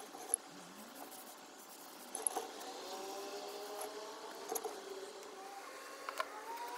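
A motor vehicle's engine hum with a slowly falling pitch, as of a car passing, with a few sharp clicks and knocks.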